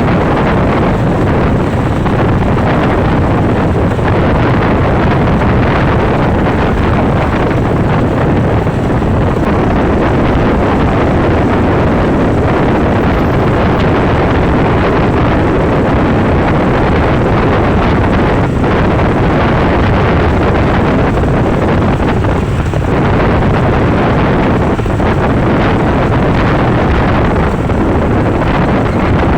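Heavy wind rushing over the microphone, mixed with road and engine noise from travelling at speed. It is loud and steady, with no horn tune.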